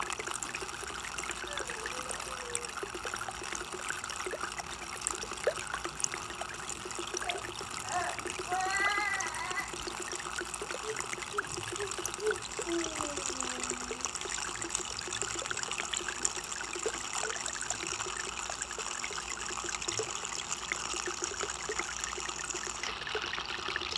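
Water trickling steadily, a continuous splashing haze, with a few faint chirping glides near the middle.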